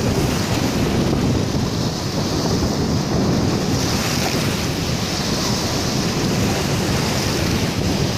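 Sea surf breaking and washing over shoreline rocks, with wind buffeting the microphone as a steady low rumble.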